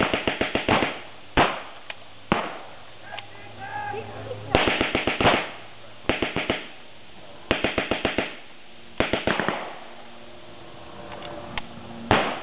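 Vickers .303 water-cooled machine guns firing blanks in short bursts of rapid shots, about six bursts with pauses of one to three seconds between them, plus a single sharp shot about two seconds in.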